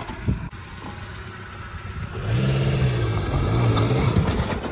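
Maruti Suzuki Gypsy King's four-cylinder petrol engine running low, then revving up about two seconds in, with the pitch rising and falling for about two seconds before easing off as the 4x4 drives on.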